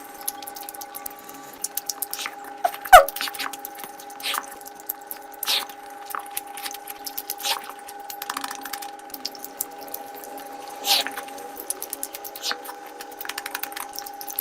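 Close-miked wet eating sounds: chewing, lip smacks and sharp mouth clicks at an irregular pace, with one loud smack about three seconds in, over a faint steady hum.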